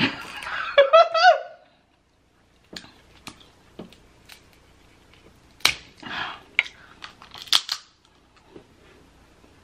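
Dungeness crab legs being cracked and pulled apart by hand, a scattering of sharp shell cracks and snaps with the loudest about halfway through and near the end, mixed with close-up eating sounds. A short wordless hum from the eater comes at the start.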